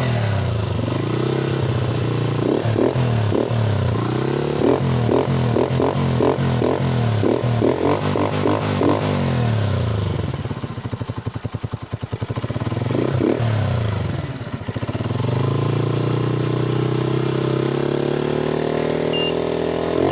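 Honda TMX single-cylinder four-stroke engine revved through a curve-type bullet-pipe muffler with its silencer insert fitted. Quick repeated throttle blips for the first several seconds, a drop to a lumpy idle around the middle, then a long steady rise in revs near the end.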